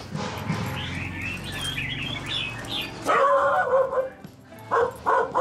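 Birds chirping and singing, then a dog barks loudly about three seconds in and several more times near the end.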